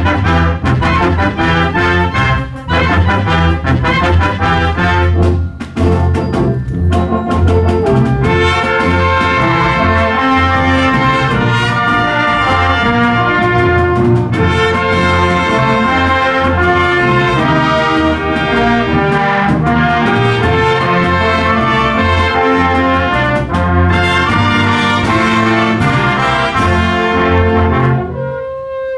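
High school concert band of brass, saxophones, flutes and percussion playing a pops medley: a punchy, rhythmic passage for the first several seconds, then loud sustained chords with the brass and saxophones to the fore, thinning to a few quieter held notes near the end.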